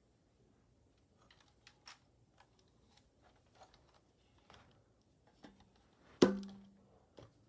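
Small plastic clicks of LEGO parts as the LEGO AUG gun is handled, then one loud snap about six seconds in, with a brief ringing tone dying away, as the gun's mechanism releases; one more click follows about a second later.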